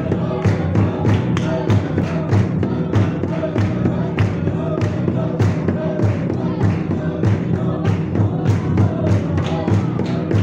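Church worship music: singing over a steady drum beat, about two to three beats a second.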